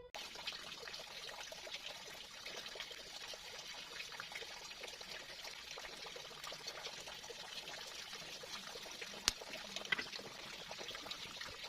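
Water running in a steady trickle, with a sharp click about nine seconds in.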